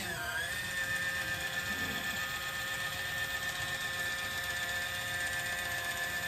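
Kitchen Mama electric can opener running on top of a small can, its motor driving the cutter around the side of the can with a steady whine. The pitch dips briefly just after the start, then holds steady.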